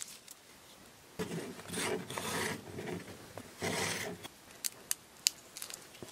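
A knife blade scraping the edge off a cast disc of set investment plaster in rough, rasping strokes, starting about a second in, with a few sharp clicks near the end. The edge is being trimmed so it won't trap air under the main investment pour.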